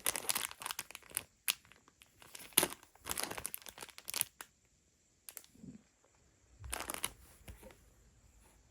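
Parcel packaging being torn open and crinkled by hand: a run of short ripping and rustling strokes, a pause, then another brief cluster about seven seconds in.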